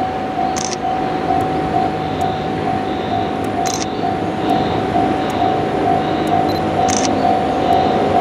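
Level crossing warning bell ringing, a pulsing electronic ding-ding repeating about two to three times a second, while a train approaches the station. Under it runs the low rumble of the approaching train, with short high chirps about every three seconds.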